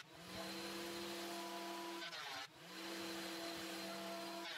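Benchtop thickness planer running with a steady motor hum and hiss while planing a hard maple board in shallow passes. The sound swells in at the start, dips about halfway through and swells back.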